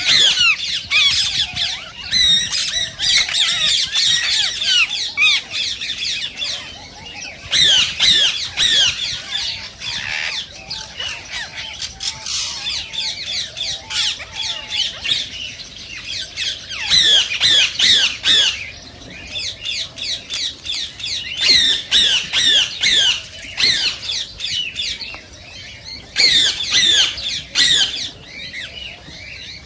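Indian ringneck parakeets calling: rapid, shrill, high calls that fall in pitch, coming in loud bursts every few seconds with quieter chatter between.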